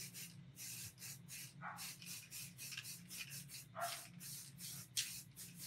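Aerosol spray paint can hissing in short repeated bursts as blue paint is sprayed onto a canvas. Two brief high squeaks falling in pitch come about two and four seconds in.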